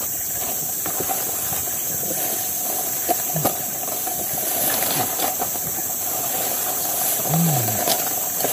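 Steady high-pitched drone of forest insects, with scattered snaps and rustles of leaves and twigs as a man pushes through dense undergrowth, and a brief low grunt near the end.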